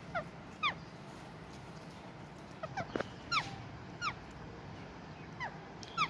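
Indian ringneck parakeets giving short chirps that fall steeply in pitch, about eight of them scattered irregularly, with one faint click about halfway.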